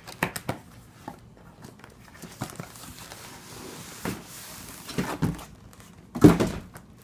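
Drone packaging being handled: a series of knocks and scraping, with a louder thump about six seconds in.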